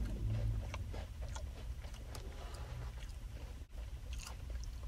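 A person eating from a spoon and chewing: soft close mouth sounds and scattered small clicks, over a steady low hum.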